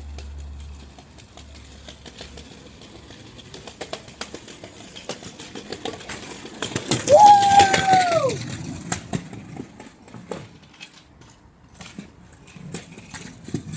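A kick scooter rolls past on pavement, its wheels rushing loudest from about six and a half to nine seconds in, with a long high-pitched whoop that rises, holds and falls as it goes by.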